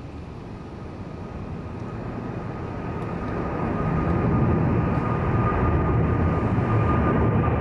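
Jet airliner passing overhead: a low rumble that swells over the first few seconds and then holds steady, with a thin steady whine above it.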